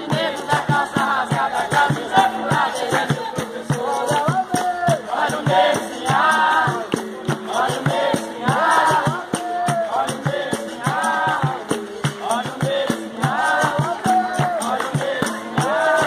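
Capoeira roda music: a group singing over a steady beat of hand-drum strikes and hand claps.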